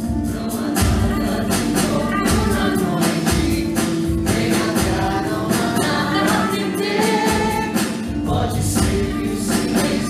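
The ensemble cast of a stage musical singing together over a band playing a steady beat.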